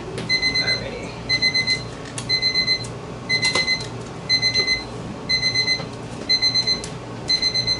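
Electronic alarm beeping a single high pitch in short rapid groups, about one group a second, repeating steadily without stopping.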